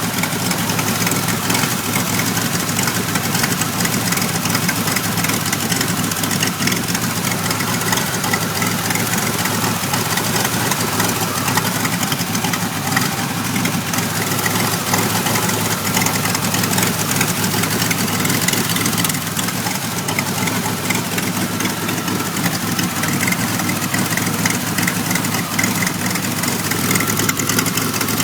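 1991 Pontiac Firebird's V6 engine idling steadily, a rough idle that the owner links to trouble codes 33 and 43.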